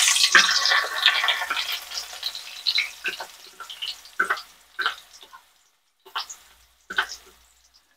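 Crushed shallot, garlic and dried red chilli masala frying in hot oil. The sizzle fades over the first couple of seconds into scattered pops and crackles.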